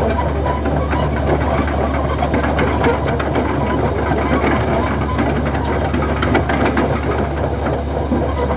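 Hydraulic excavator's diesel engine running steadily with a deep hum, with frequent knocks and clatter from the machine as it works.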